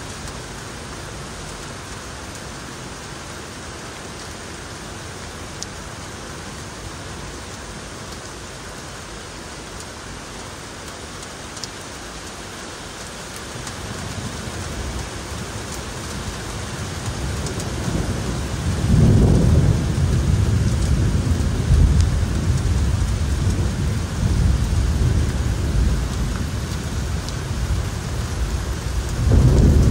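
Steady rain, joined about halfway through by thunder: a low rumble that builds and rolls on loudly, swelling again near the end.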